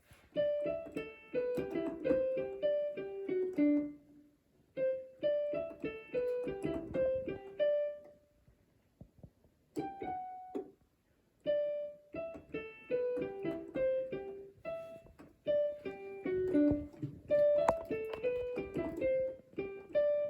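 Electronic keyboard played in a piano voice: a simple melody in short phrases of single notes and small chords, with brief pauses between phrases. Played by a learner, with a few slips.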